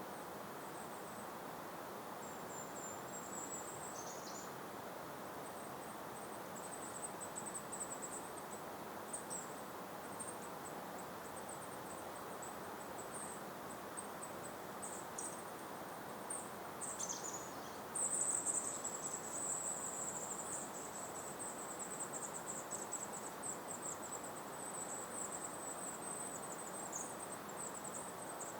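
A gentle breeze with a very high, thin, buzzy bird trill that comes and goes at first and runs almost without a break from about two-thirds of the way through, with a couple of short down-slurred notes.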